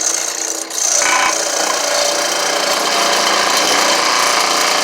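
A saw cutting through wood from an old stump, a steady, loud rasping that builds up about a second in and keeps going without a break.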